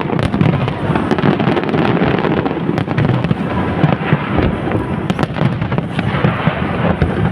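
Aerial fireworks display: a dense, continuous barrage of bangs and crackles with no pauses.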